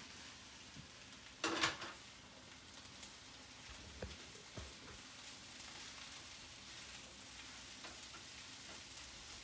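Broccoli rabe, red onions and mushrooms sizzling faintly in a little oil in a sauté pan while being stirred with a spatula. There is one brief louder scrape about a second and a half in, and two low knocks around four seconds in.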